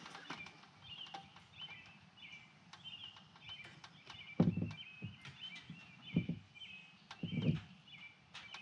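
Three dull knocks as a rhododendron-branch sculpture is handled against a wooden coop wall, about four and a half, six and seven and a half seconds in. Short repeated bird chirps run throughout.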